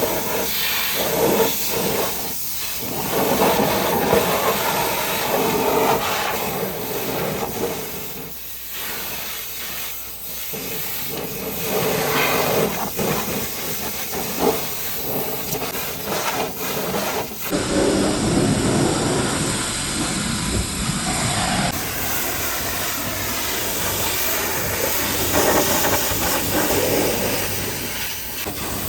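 High-pressure washer jet spraying water onto a truck's surfaces, a continuous hiss that rises and falls as the spray moves.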